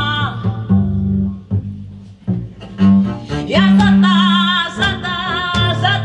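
Live band music led by an upright double bass playing sustained low notes, with light percussive clicks over it. A woman's voice fades out just after the start and comes back about three and a half seconds in with a wordless line sung with vibrato.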